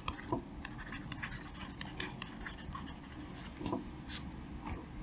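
Stylus scratching and tapping on a drawing tablet while handwriting, a fairly quiet, irregular run of small clicks and scrapes.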